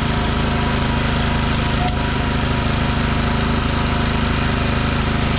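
Ryobi 3400-watt inverter generator's engine running steadily with an even hum, pretty quiet for a generator.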